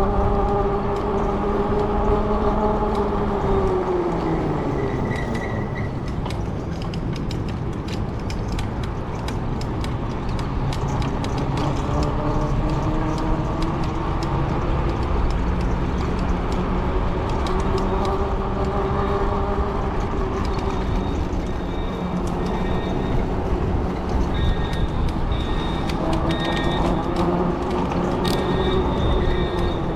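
E-bike electric motor whining under way, its pitch dropping about four seconds in and climbing again later as the speed changes, over a steady rush of wind noise.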